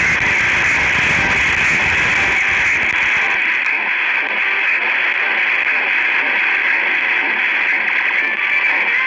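Radio receiver giving out loud static: a steady hiss with rough crackling interference. The low crackle drops away about three seconds in, leaving the hiss.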